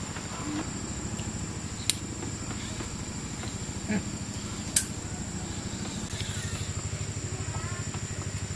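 Bamboo poles knocking together as they are handled and laid out, two sharp clacks a few seconds apart. Underneath runs a steady high insect trill and a low, steadily pulsing motor hum.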